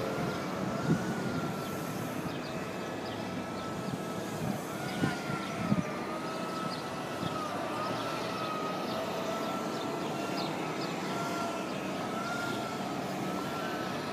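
Emergency-vehicle siren wailing, its pitch slowly wavering up and down, over a steady background of street noise, with a few short knocks.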